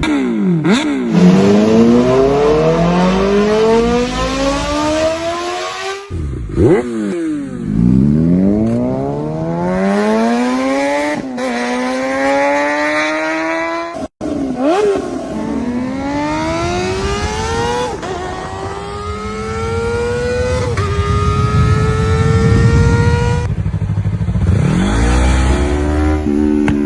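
Kawasaki sport motorcycles accelerating hard through the gears, one after another. In each, the engine pitch climbs steeply and drops back at every upshift. There are abrupt cuts between bikes about 6, 14 and 23.5 seconds in.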